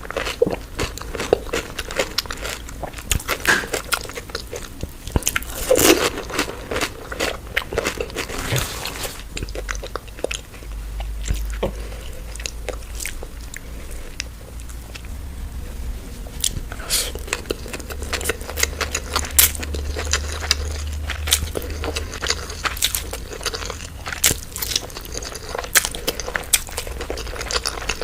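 Close-up eating sounds: crisp crunching bites and chewing of street food, with a quieter, sparser stretch in the middle.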